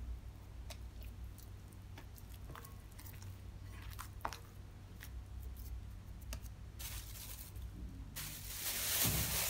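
Faint wet squelches and soft clicks of sticky, water-wetted bread dough being folded and pressed by hand in a ceramic bowl. Near the end a louder crackling hiss takes over: cling film being pulled off the roll to cover the bowl.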